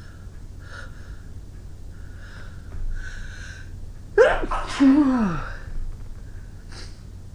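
A woman sneezing: quiet breaths and a drawn-in gasp, then about four seconds in one loud sneeze whose voice falls in pitch, followed by a short sniff near the end.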